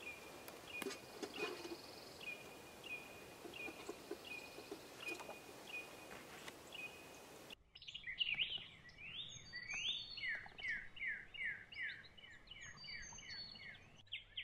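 Faint woodland birdsong. A bird repeats a short chirp about every 0.7 s among a few faint clicks. About halfway through the sound changes abruptly to another bird singing quick series of falling notes, several a second.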